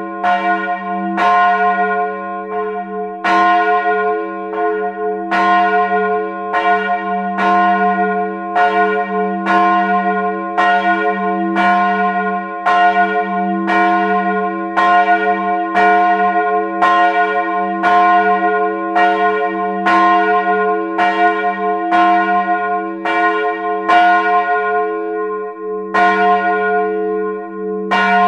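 The 1899 bronze bell with strike note f', 110 cm across and cast by M. & O. Ohlsson of Lübeck, swinging and ringing alone, heard close up in the belfry. The clapper strikes about once a second, and each stroke rings on into the next with a deep hum underneath.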